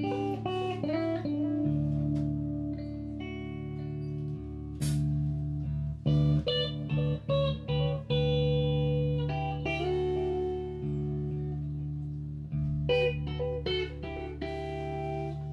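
Live instrumental band music: an electric guitar plays melodic lines and chords over long held bass guitar notes, with only a few sharp percussive hits and no steady drum beat.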